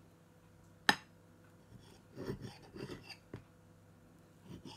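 Knife and fork on a ceramic plate while cutting a pancake: one sharp clink about a second in, then a few softer taps and scrapes.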